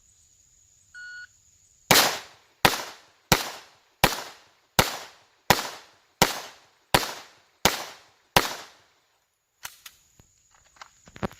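A short electronic beep, then a string of ten quick pistol shots from a Glock 44 .22 LR, evenly spaced about 0.7 s apart.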